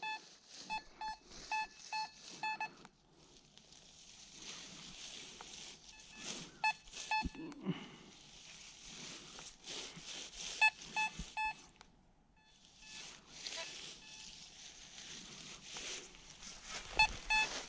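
Fisher F22 metal detector giving its target signal: runs of short beeps of one pitch, about two a second, that come and go, at the start, twice in the middle and again near the end. A faint hiss lies between the runs.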